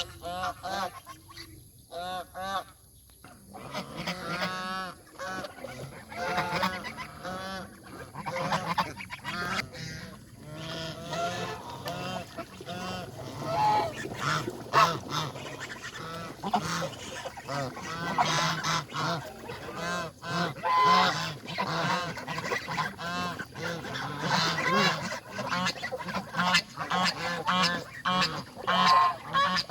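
A flock of domestic geese honking and calling, a few calls at first and then many overlapping from a few seconds in.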